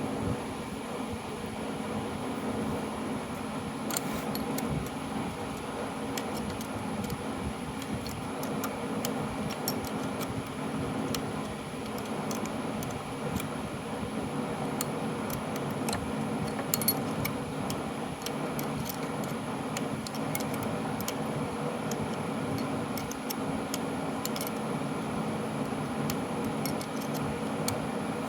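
A steady machine hum, like a fan, with scattered light metallic clicks and taps of tools and parts being handled while a bolt on a Delco starter is worked loose.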